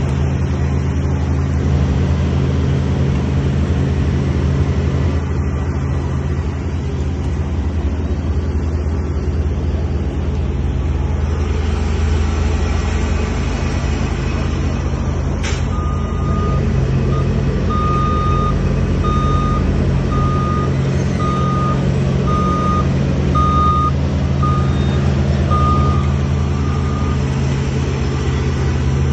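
Heavy work vehicle's engine running steadily. A little past halfway there is a sharp click, and then its reversing alarm beeps about once a second for some ten seconds before stopping.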